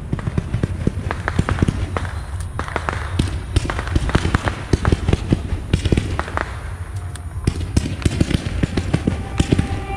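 Ground-launched fireworks going off: a dense, irregular string of sharp pops and crackles as comets and small shells fire and burst low over the field.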